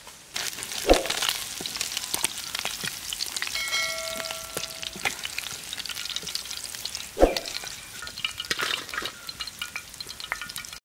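Small puti fish frying in hot oil in a pan: a dense sizzle and crackle with stirring, and two sharp knocks, about a second in and about seven seconds in.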